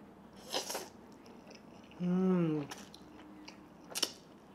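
A man slurping up a mouthful of spicy instant fire noodles with a short sucking burst about half a second in, a brief falling hum around two seconds, and another quick slurp near the end.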